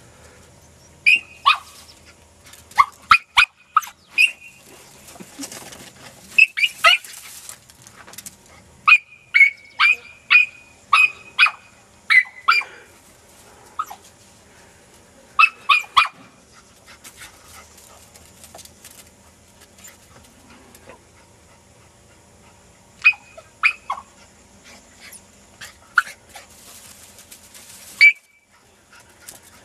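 Podenco hunting dog barking in short, high yips, in clusters of a few at a time with a quieter stretch of several seconds past the middle.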